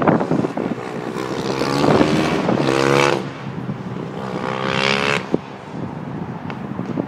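Superkart's Yamaha YZ450F single-cylinder four-stroke engine accelerating down the track. Its note rises twice and is cut off sharply each time as the driver shifts or lifts off the throttle.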